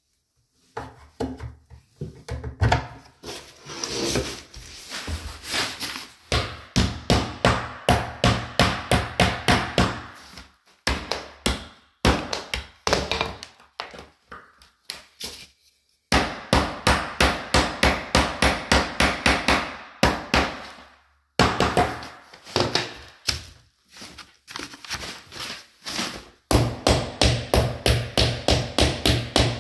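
A hammer striking quickly and repeatedly, about four blows a second in runs of several seconds with short pauses between, knocking concealed cup hinges into a cabinet door.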